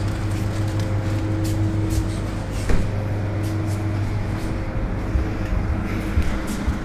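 Steady low hum of refrigerated display coolers, with a single knock about three seconds in as a glass cooler door is pulled open or swung shut, and scattered light clicks.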